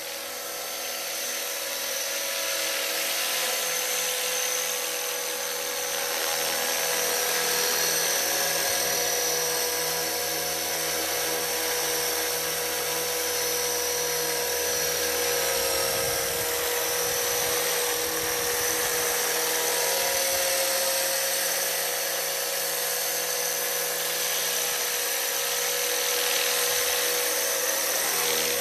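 Electric 450-size RC helicopter (T-Rex 450 class, in a Bell 206 Jet Ranger scale body) flying close and hovering: a steady high whine of the motor and drive gears with rotor blade noise. It grows louder over the first few seconds as it comes in, then holds steady.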